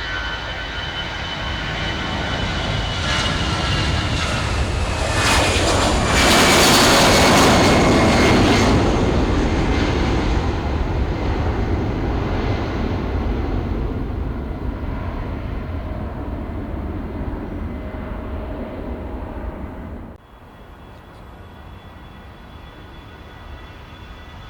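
A jet airliner's engines on a takeoff run, passing close by. The engine noise swells to a loud peak with a falling whine as the plane passes, then fades, and drops off suddenly about 20 seconds in.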